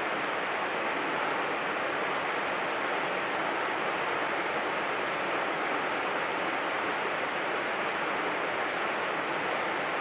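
Steady, even rush of a mountain stream's flowing water, with no change in level.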